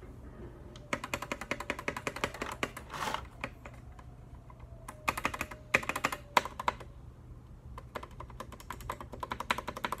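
Bare lubed and filmed Gateron Milky Yellow linear switches on a GK64X hot-swap keyboard, pressed rapidly by fingertips: a fast clatter of key clicks in three flurries with short pauses between.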